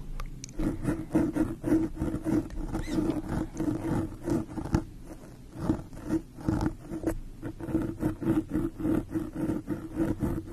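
Cotton swab rubbed and scratched against the microphone in quick repeated strokes, a few a second, as an ASMR ear cleaning: close, loud rustling strokes.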